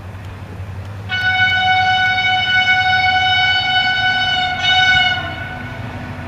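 Approaching train's locomotive horn sounding one long single-note blast of about four seconds, briefly broken and blown again louder just before it stops. A low steady rumble lies underneath.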